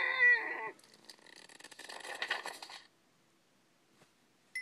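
Sound effects from a storybook app, played through a tablet speaker: a short, wavering, voice-like cry, then about two seconds of hissing noise with a faint steady whistle in it. Then it falls quiet.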